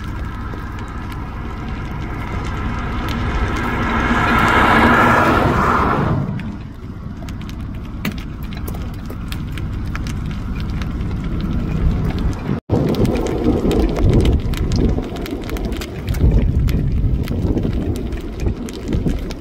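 A vehicle driving past on a hail-strewn highway: its tyre noise builds to a peak and drops away about six seconds in. After that comes a steady low wind rumble with scattered light ticks, broken by a brief dropout about two-thirds of the way through.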